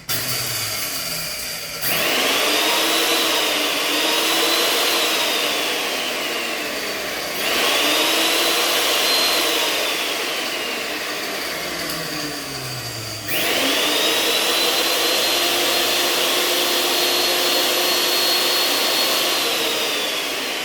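High-speed electric blade grinder running, grinding whole dry grains and beans toward powder: a loud, high-pitched motor whine with hiss. It surges louder three times, about two, seven and thirteen seconds in, and the pitch sinks slowly after each surge.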